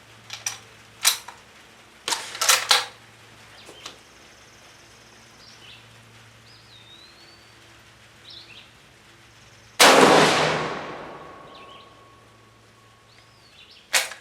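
A Spanish FR7 bolt-action rifle in 7.62×51 NATO: a few sharp metallic clicks of the bolt being worked in the first three seconds, then one rifle shot about ten seconds in that echoes and dies away over about two seconds. A single click comes near the end.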